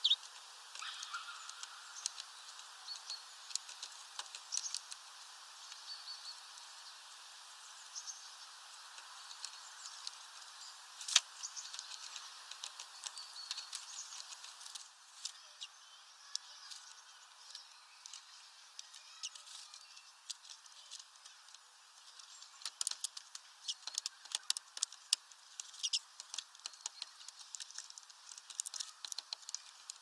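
Small birds giving short high chirps outside. In the second half comes a quick run of sharp taps as a great tit pecks at seed in a plastic feeder tray.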